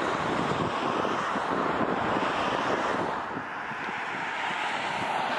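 Jet engine roar of a Boeing 737 on the runway, with wind buffeting the microphone. About three seconds in it gives way to the slightly quieter, steady engine sound of a Boeing 737-800 on final approach.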